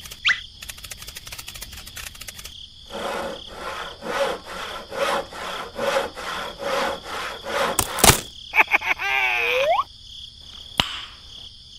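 Hand saw cutting through a wooden stick with back-and-forth strokes, about two a second. The sawing ends in a sharp crack, followed by a falling creak, over a steady background of crickets chirping.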